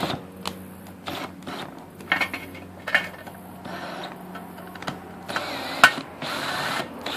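Cordless drill running in short bursts as its bit bores back through a hole in a thin tin mint-tin lid, to clear the torn, jagged edges. Sharp clicks and scraping come from the bit grabbing the thin metal, with a longer, louder stretch of drilling near the end.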